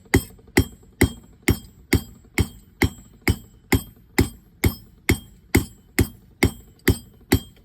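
Hand hammer striking a 1/4 inch square steel bar on an anvil in a steady rhythm of about two blows a second, each blow with a bright metallic ring, as the bar is turned to round it out from square to octagon to round.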